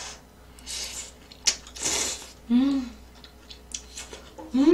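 A person slurping ramen noodles, two short noisy slurps about a second apart, followed by a short hummed "mm" and another brief vocal sound near the end.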